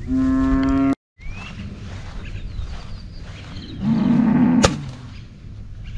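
Cattle mooing: a loud call in the first second that cuts off abruptly, then a second, lower call about four seconds in, ending with a sharp click.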